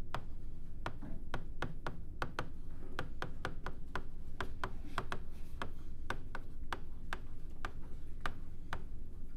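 Handwriting on a tablet touchscreen: the writing tip taps and scratches on the glass in quick, irregular clicks, several a second, as words are written out.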